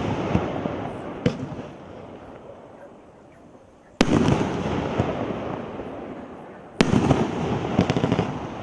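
A 36-shot, 2-inch consumer fireworks cake firing its shells: two sharp bangs about three seconds apart, about four and seven seconds in. Each is followed by a crackle that fades over a few seconds.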